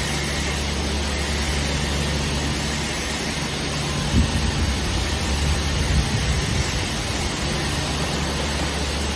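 Automatic soft-close hinge assembly machine running, with vibratory bowl feeders and pneumatic stations: a steady low hum under an even hiss, with a few louder knocks about four to six seconds in.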